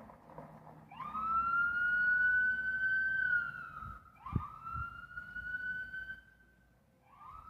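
Police car siren sounding in three blasts, each sweeping quickly up to a high tone and holding it for two to three seconds. The first starts about a second in, the second about four seconds in and the third near the end. A short knock is heard as the second blast begins.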